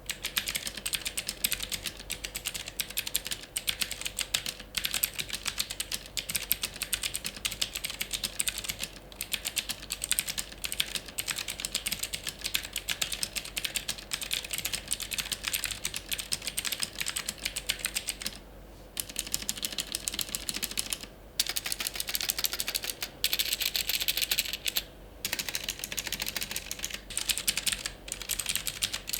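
Fast typing on an AULA F2066-II mechanical keyboard with clicky blue KRGD switches (Cherry MX Blue clones): a dense run of sharp key clicks, broken by a few brief pauses.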